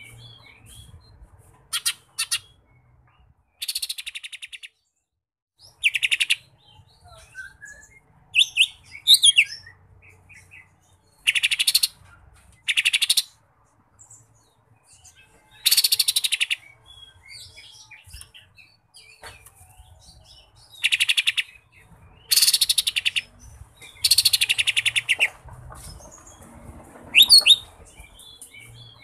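Caged cucak ijo mini (a leafbird) singing loud bursts of high-pitched song about a dozen times, many of them fast rattling trills, with short pauses between. The song is filled with phrases learned from the kapas tembak.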